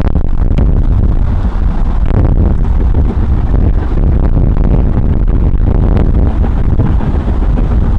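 Wind buffeting the microphone with a loud, steady low rumble, over two LMS Stanier Black 5 4-6-0 steam locomotives working a train under steam.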